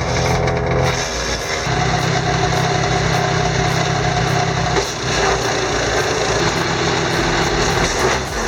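Wood chipper's engine running, with its note changing a few times.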